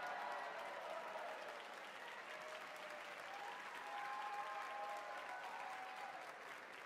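Audience applauding and cheering, with a few drawn-out shouts of cheer rising above the clapping near the start and again about four seconds in.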